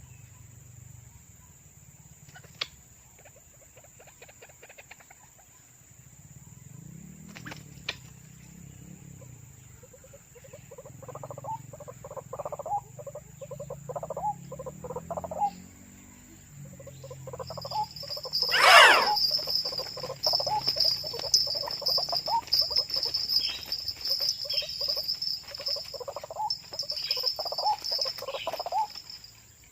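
White-breasted waterhens calling, a long run of repeated croaking notes that begins about ten seconds in and grows louder, with a steady high insect buzz joining partway through. One brief loud sweep of sound about two-thirds of the way in is the loudest moment.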